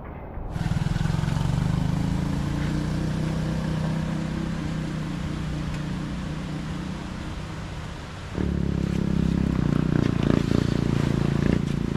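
A vehicle engine starts about half a second in and runs with a steady low hum. At about eight seconds it turns suddenly louder and rougher.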